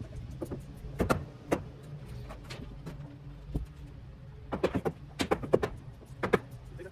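A hammer knocking at the soffit and fascia trim on the eave: about eight sharp, irregular blows, several in quick succession near the end. A steady low hum runs underneath.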